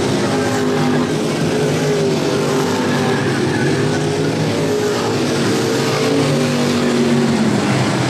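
A pack of Street Stock race cars running hard around a dirt oval, their engine notes overlapping and rising and falling as they go through the turns.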